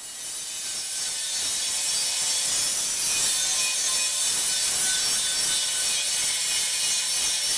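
Angle grinder grinding leftover weld off the inside end of a steel conveyor roller tube: a steady, loud grinding noise that builds over the first second.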